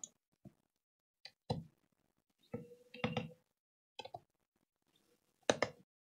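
Scattered knocks and clicks of hands handling a laptop's bottom cover on a desk and picking up a screwdriver to open it, with a brief ringing tone about three seconds in.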